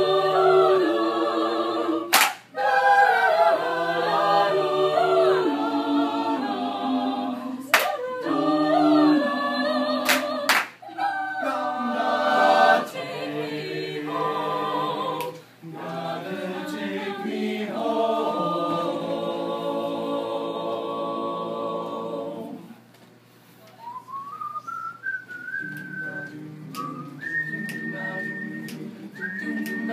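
Mixed a cappella group singing in close harmony, several voices together. About 23 seconds in the singing breaks off briefly, then a whistled melody comes in, rising and then held high, over softer backing voices.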